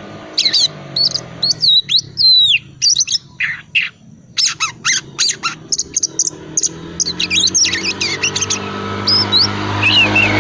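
Oriental magpie-robin (kacer) chattering in a rapid string of short chirps, clicks and sweeping whistles: the low, scratchy twittering (ngriwik) used as a lure recording to set other magpie-robins singing. A low humming background builds up near the end.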